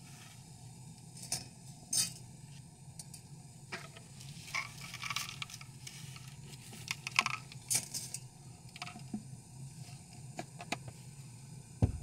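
Dry spaghetti rattling and clicking as it is shaken out of a pasta container and dropped into a stainless steel pot, with scattered clinks against the metal and a louder knock near the end. A low steady hum, from the gas stove burning under the pot, runs beneath.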